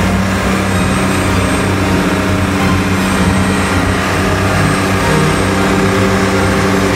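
Boat engine running steadily with a low drone.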